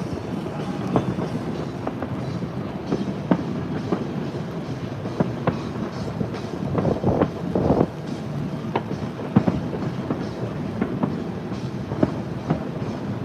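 Distant aerial fireworks popping and crackling at irregular intervals over a steady hiss of rain, with a denser burst of cracks about seven seconds in.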